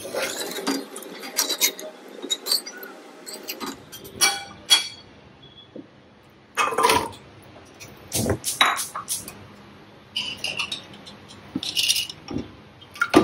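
Kitchen clinks and knocks as cubed raw potatoes are tipped from a ceramic bowl into an aluminium pressure cooker of mutton stock, the bowl and utensils knocking against the cooker, with a few short scrapes near the end.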